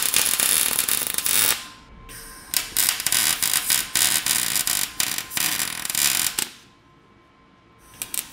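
Wire-feed welder laying short tack welds: a crackling arc in several bursts with brief breaks, stopping for about a second near the end before striking again. The welds tack coilover shock brackets onto steel suspension arms.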